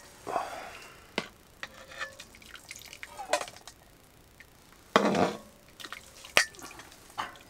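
Soup broth being scooped from a pot with a mug and poured: liquid splashing and dripping, with sharp clinks of dishes and a louder pour about five seconds in.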